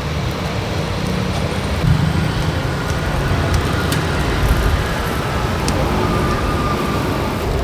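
Steady rumble of busy road traffic passing close by, with a few faint light clicks over it.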